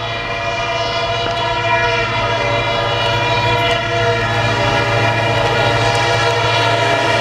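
Diesel locomotive hauling an express train approaching at full speed, getting steadily louder, with a low engine throb under a steady many-toned drone held throughout.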